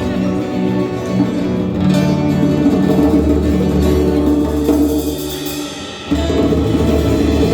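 Live band music led by plucked guitar with light percussion; the sound thins briefly and comes back in full about six seconds in.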